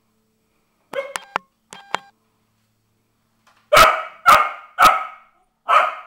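Cardigan Welsh Corgi barking: a few short, quieter yips about a second in, then four loud barks in quick succession near the end.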